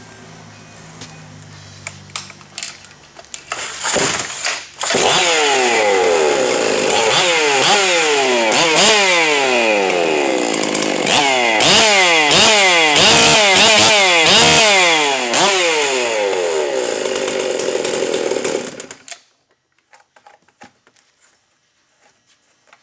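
Ported Stihl MS 460 two-stroke chainsaw starting about four seconds in, after a few clicks, then revved hard up and down over and over for about fourteen seconds before cutting off suddenly.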